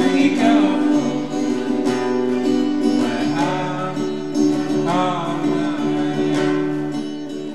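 Live band music led by a strummed acoustic guitar, with a melody line over sustained chords, getting quieter toward the end.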